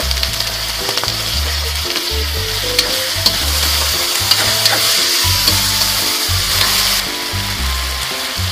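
Julienned vegetables sizzling in oil in a metal wok while a metal spatula stirs and tosses them, with scattered sharp clicks and scrapes of the spatula against the wok. Background music plays underneath.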